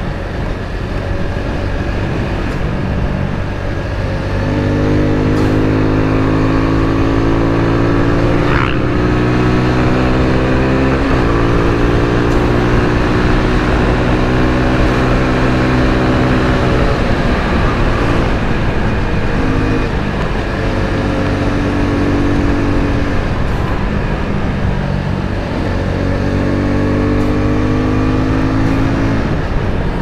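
Suzuki Gixxer 250's single-cylinder engine under way, revs climbing through the gears with shifts in the first third, holding steady, easing off past the middle, then building again near the end.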